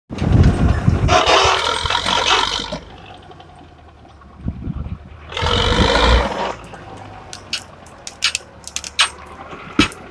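Ural off-road truck's engine revving hard twice as it churns in deep mud, each rev a loud rush over a low steady engine drone. Between and after the revs the engine runs lower, with scattered sharp clicks and snaps.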